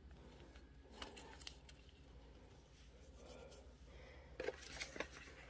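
Near quiet, with faint handling noises from small plastic bags of beads and metal jewellery findings being moved on a table. A soft click comes about a second in, and a brief cluster of light clicks and rustles comes near the end.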